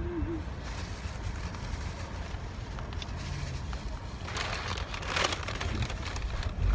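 Steady low rumble inside a car, with a brief burst of rustling about four seconds in.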